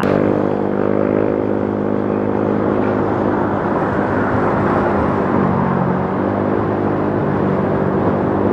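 Motorcycle engine running while riding, its pitch sagging and then shifting again about halfway through as the throttle changes, over steady wind and road noise.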